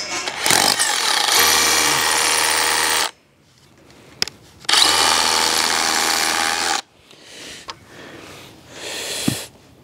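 Cordless drill running into a concrete foundation wall in two steady bursts of two to three seconds each, followed by quieter handling sounds.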